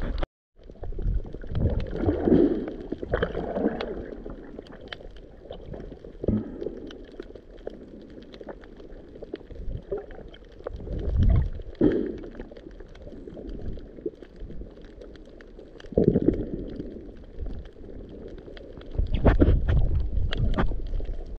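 Underwater reef ambience: a constant crackle of tiny clicks, which the snorkeler takes for fish and coral, over low, muffled water surges that swell every few seconds.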